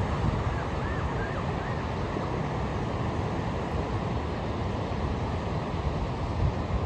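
Ocean surf washing steadily onto a beach, with wind buffeting the microphone. A faint wavering high call is heard briefly about half a second to two seconds in.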